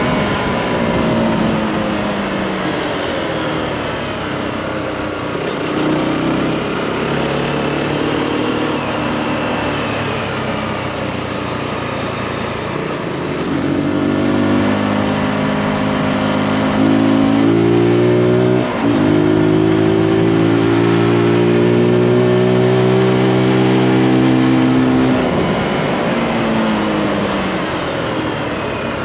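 Zontes G155's 155 cc single-cylinder four-stroke engine heard from the saddle while riding. The revs fall off at first, then climb hard from about halfway with a brief break about two-thirds through, stay high for several seconds, and drop again near the end as the bike slows. Wind rushes over the microphone.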